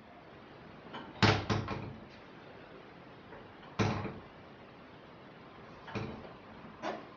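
A door rattling in its frame in irregular bouts: a quick run of three knocks about a second in, the loudest, then single rattles every second or two.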